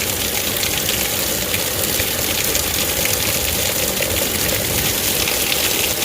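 Heavy rain pouring down in a steady, even hiss during a thunderstorm downpour.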